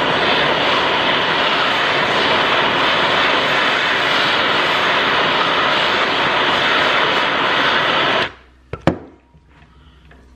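Handheld MagTorch trigger-start torch burning MAP-Pro gas with a steady, loud hiss of flame. It shuts off abruptly about eight seconds in, and a sharp click follows a moment later.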